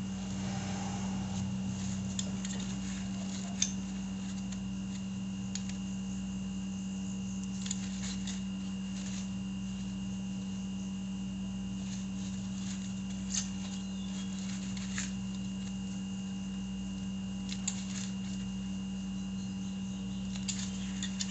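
A steady hum with a few faint, isolated clicks and taps of small parts or hand tools being handled, spread seconds apart.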